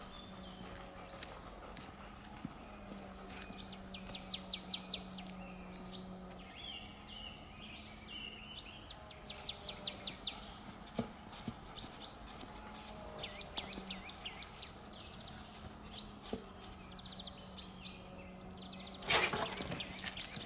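Songbirds chirping and singing, with repeated rapid trills, over a faint low steady hum that comes and goes. A brief loud noise near the end.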